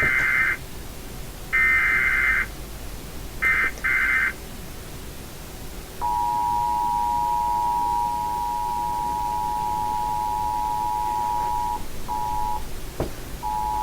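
Emergency Alert System activation for a tornado warning. Three short bursts of the SAME header's digital data tones come about a second and a half apart. About six seconds in, the steady two-tone EAS attention signal starts, cutting out briefly twice near the end.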